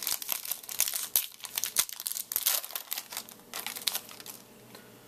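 A baseball card pack's wrapper being torn open and crinkled: a dense run of crackling that stops about four seconds in.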